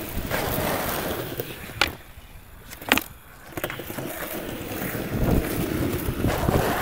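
Skateboard wheels rolling over rough asphalt, a steady rumble, with two sharp clacks of the board about two and three seconds in.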